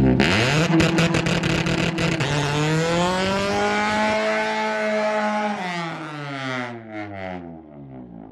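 Acura Integra's four-cylinder engine pulling hard under acceleration. Its pitch dips briefly at the start, climbs and holds high, then winds down over the last few seconds as the revs drop.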